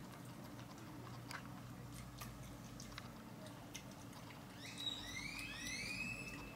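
Scattered light clicks and taps from a white-nosed coati moving and feeding on a tiled floor. About four and a half seconds in comes a quick run of five or six high chirps, each rising then falling.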